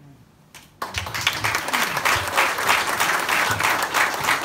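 A room full of people applauding, breaking out suddenly about a second in and going on steadily.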